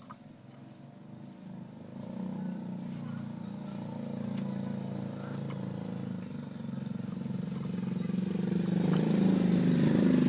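A motor vehicle's engine running, growing steadily louder as it comes closer. A bird gives a few faint, short, upward chirps over it.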